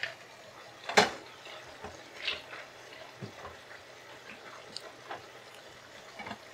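Cooking pan sounds as fried dal badi are added to the curry and stirred in: one sharp knock of a utensil against the pan about a second in, then a few light clicks and taps.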